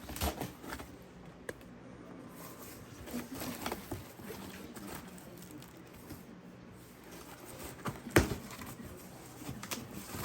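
Handling noises from unpacking a boxed product: scattered taps, knocks and rustling of packaging, with one sharp knock about eight seconds in.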